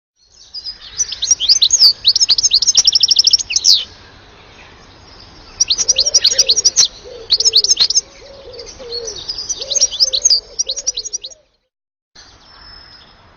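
European goldfinch singing: three phrases of rapid, high twittering trills, broken by short pauses. The song cuts off abruptly near the end.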